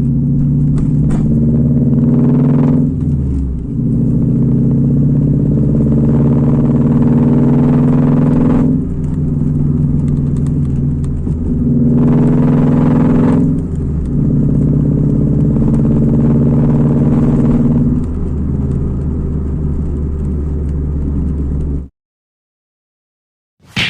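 Ford Fiesta engine through unequal-length headers and a 2.5-inch open exhaust pipe, running with a loud, steady note, the Subaru-style sound the headers were fitted for. It is revved briefly twice, then the sound cuts off suddenly near the end.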